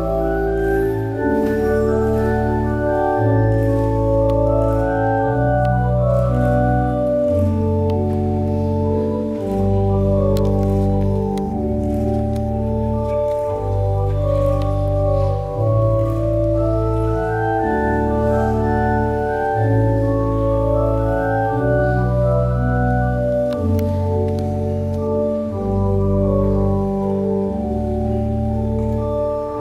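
Organ playing a slow wedding processional of long held chords over a stepping bass line. The phrase starts over about halfway through.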